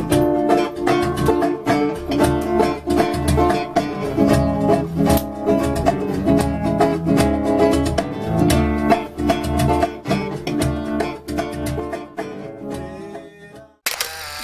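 Instrumental music led by a plucked string instrument, guitar-like, with a low pulsing beat underneath; it fades out about 13 seconds in. Near the end it cuts abruptly to a steady hiss with a low hum.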